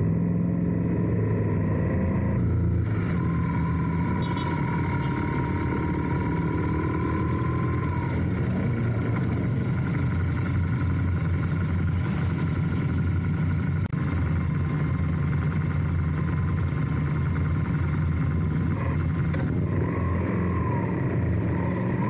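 Motorcycle engine running steadily at road speed, with wind and road noise, heard from a motorcycle on the move.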